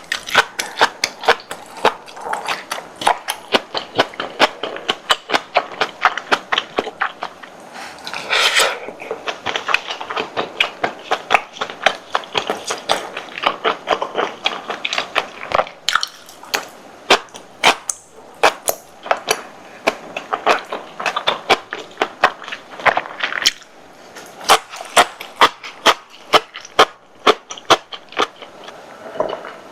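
Close-miked chewing of spicy tteokbokki with sausage and cabbage: a steady run of wet mouth clicks and smacks, several a second, with a longer slurping or crunching burst about eight seconds in.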